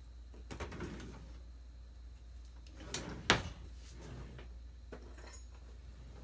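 Kitchen drawer and cupboard handling: a few light knocks, then two sharp knocks about three seconds in, the second the loudest, and a few softer clatters after.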